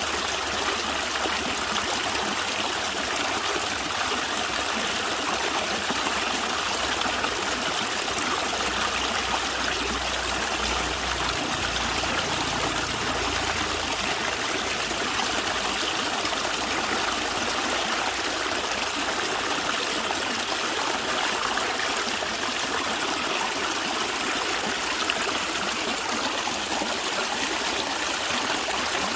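Natural stream running and gurgling over rocks, a steady, even sound of flowing water.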